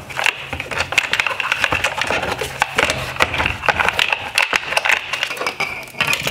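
Plastic clicking, rattling and scraping as a wiring harness and its connectors are pulled through a rubber grommet and out of a plastic headlight housing. The clicks come in a rapid, irregular run.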